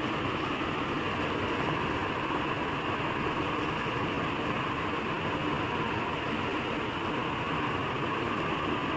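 Steady, even background noise with no distinct events, like a fan or distant traffic.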